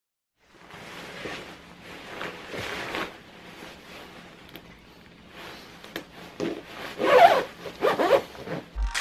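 A ski jacket's zipper being fastened and pulled up, amid rustling of the jacket's fabric. The loudest zip strokes come near the end.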